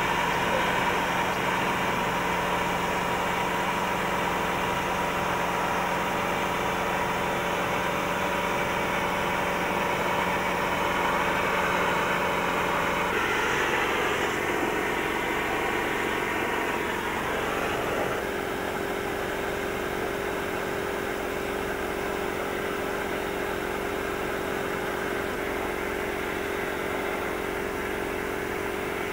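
Air compressor running steadily, with the hiss of the compressed-air sandblasting gun blasting abrasive against a stone door frame to strip old paint. The steady hum changes its pitch pattern about halfway through.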